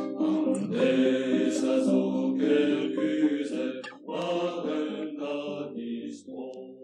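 Voices singing together in a chant-like style, a Breton marching song, fading toward the song's end.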